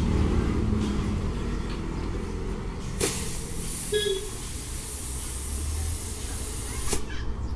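Compressed air hissing from a shop air hose for about four seconds, starting and stopping abruptly, over a steady low rumble.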